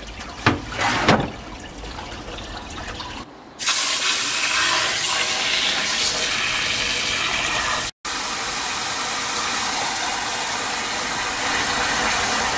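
A couple of knocks, then water from a tap running hard and steadily from a few seconds in, with a momentary break near the middle.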